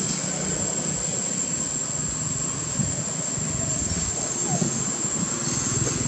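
Steady background of a low engine-like rumble with a continuous high, thin insect drone above it.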